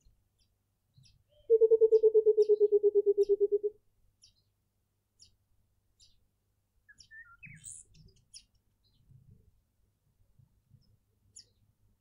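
Burchell's coucal calling: a rapid run of about twenty low hoots, about nine a second, falling slightly in pitch and lasting a little over two seconds, starting about a second and a half in. Small birds give faint, scattered chirps around it.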